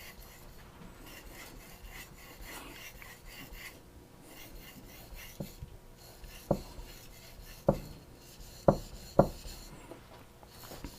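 A petty knife's blade being stroked back and forth on a wet whetstone: faint, repeated rasping strokes. About halfway through, a handful of sharp knocks cut in over the strokes.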